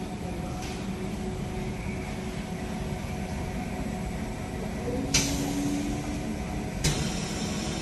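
Selective wave soldering machine running with a steady hum, broken by two sharp clicks about five and seven seconds in, the first trailing a short hiss.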